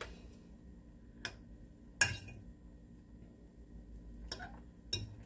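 A metal fork clinking a few times against a ceramic baking dish as it pokes boiled carrots to test whether they are done; the loudest clink comes about two seconds in.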